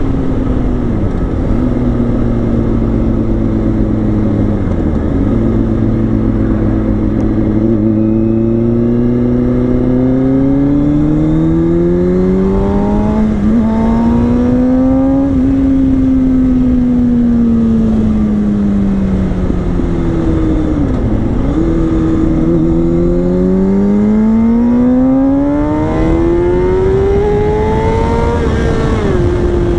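2005 Kawasaki ZX6R's 636cc four-cylinder engine running through a Yoshimura exhaust under hard riding. Its note climbs and falls with the throttle, with short dips at each gear change, a long rise about halfway in and another near the end.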